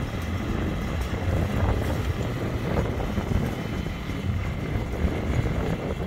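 Farmall 656 tractor engine running steadily, a low even drone.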